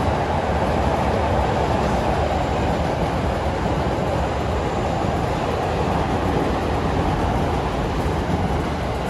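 A train running past with a loud, steady rolling noise.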